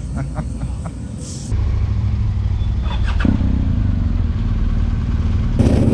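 Adventure motorcycle engine running at low speed, heard from a camera mounted on the bike, cutting in abruptly about a second and a half in. The engine note rises briefly around three seconds in and the sound steps up in level near the end.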